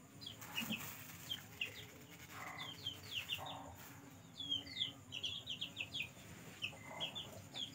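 Chickens calling: many short, high peeps that fall in pitch, coming in quick runs, with a few lower, rougher calls among them.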